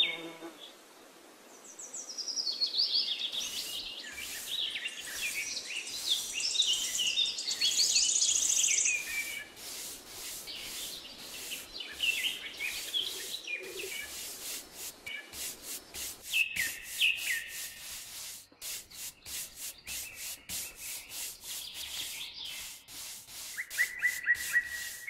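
Flat bristle paintbrush scrubbing paint onto a rough cement surface in quick, repeated short strokes. Birds chirp and trill in the background, most busily in the first third.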